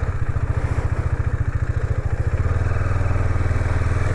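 KTM Duke 250's single-cylinder engine running steadily, a low, even pulsing with no revving.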